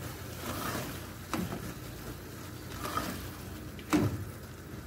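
Wooden spoon stirring thick carrot halwa in a steel pot, with a few knocks of the spoon against the pot, the loudest near the end, over the soft sizzle of the mixture cooking down on the stove.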